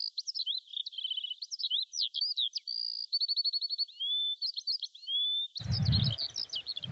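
Several songbirds singing continuously: a busy mix of short chirps, rapid trills and whistled rising and falling notes. About five and a half seconds in, a low rumbling noise joins underneath.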